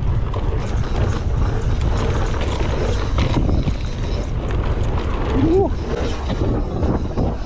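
Wind rumbling on the microphone over the rolling and rattling of a mountain bike on a dirt trail, with one short voice sound, rising then falling, about five and a half seconds in.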